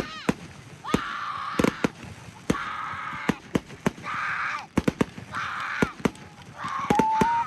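Fireworks going off in the distance: irregular sharp cracks, with short rushing crackles about every second or so.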